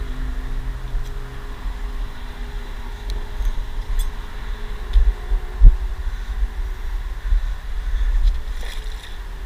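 Wind rumbling and buffeting on the microphone, with a faint engine hum that fades out after about a second and a half. A few light clicks and one sharp knock a little past halfway come from rope and a small metal grappling hook being handled.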